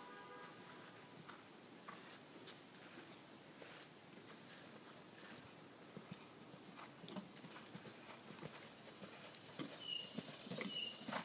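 A horse cantering on arena sand: soft, muffled hoofbeats, faint at first and growing louder and more distinct near the end as the horse comes closer.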